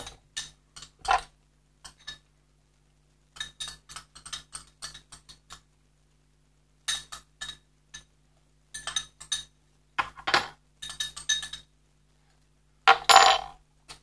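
Glassware clinking: irregular clusters of light clinks and taps as a glass cup is handled, with a louder burst near the end.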